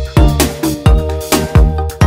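Electronic background music with a steady kick-drum beat and sustained synth notes.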